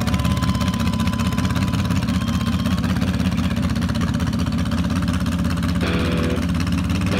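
Drag boat's inboard engine idling in the water with a deep, steady rumble.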